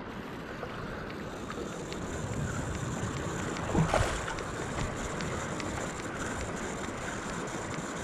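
Wind blowing on the microphone over small waves washing in the surf, a steady rushing noise that swells briefly about four seconds in.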